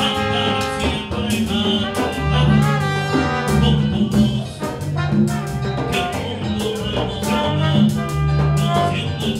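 Live Latin dance band playing: a lead singer on a handheld microphone over timbales and cymbal hits, with a steady bass line underneath.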